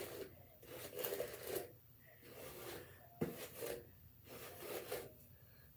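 Hairbrush drawn back through long hair in repeated strokes: a faint brushing rustle about once a second, five or so strokes, with a sharp click about three seconds in.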